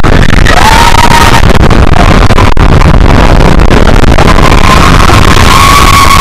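Mine-train roller coaster in motion: a heavy rush of wind and track rumble on the microphone, with riders giving long held screams about half a second in and again from about four seconds in.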